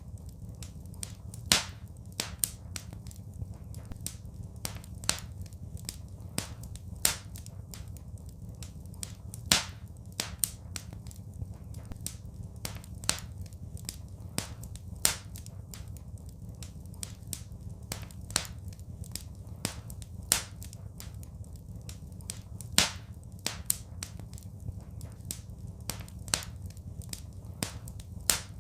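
Wood fire in a fireplace crackling: irregular sharp snaps and pops, a few much louder ones, over a steady low rumble of the burning fire.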